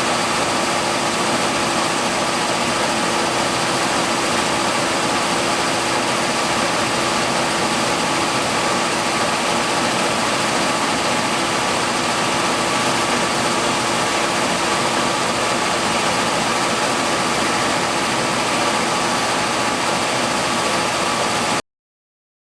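Bale-yarn twister-winder running at a steady speed: an even mechanical noise with a steady hum, cutting off suddenly near the end.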